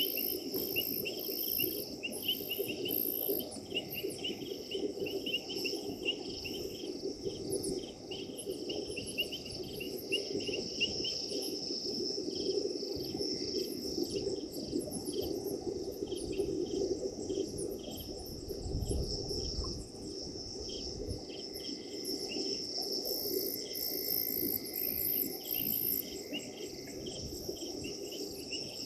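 Night chorus of crickets and other insects: several layers of fast, steady pulsed chirping, over a low steady hum, with a brief low rumble about two-thirds of the way in.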